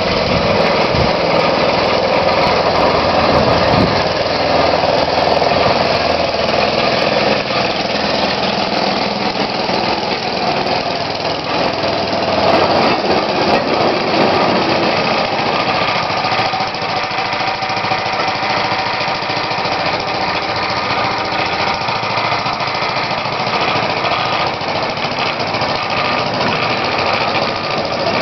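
The engine of a small self-propelled lorry rail car running steadily, the car riding along the rails under its own power.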